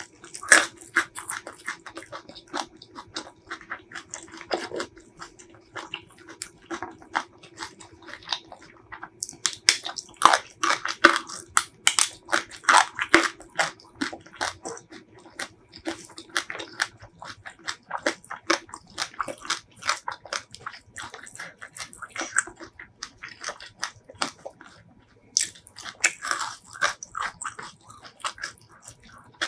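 Close-miked eating: a person chewing mouthfuls of spicy shrimp salad with rice and water spinach, a dense run of quick wet crunches and mouth clicks, busiest around the middle.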